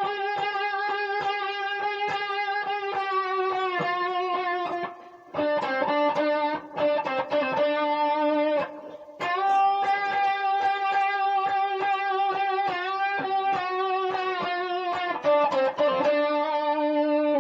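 Blues lick on guitar in D: a bent note picked over and over in quick repetition, then released so the pitch slides down. The lick is played about three times, with short breaks roughly 5 and 9 seconds in.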